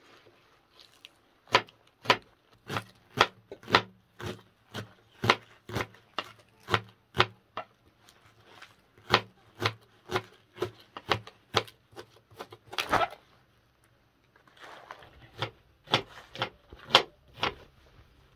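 Kitchen knife chopping green vegetable stalks on a cutting board: sharp chops about two a second, pausing briefly a little past the middle before the chopping starts again.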